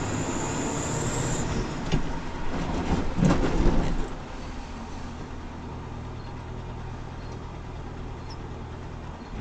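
A truck's engine runs under way, heard from the dashcam in its cab, with tyre and road noise from the wet road. About two seconds in there is a knock, and the noise grows louder and rougher for a couple of seconds before settling back to a steady low hum.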